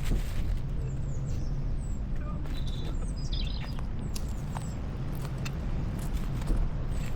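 Small birds chirping and calling in short high notes, with a few sharp clicks, over a steady low rumble.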